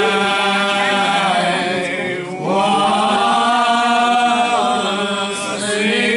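Voices singing a slow hymn, holding long notes, with short breaks between phrases about two seconds in and again near the end.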